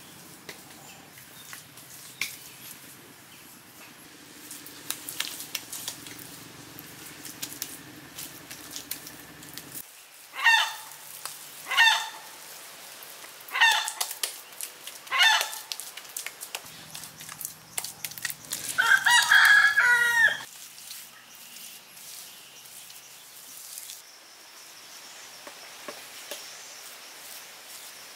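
Chickens calling: four short, loud calls a second or two apart, then a rooster crowing once for about two seconds, the loudest sound. Faint taps run underneath.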